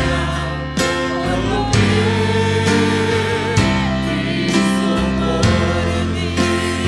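Christian worship song: singing with instrumental accompaniment over a bass line that changes note about once a second.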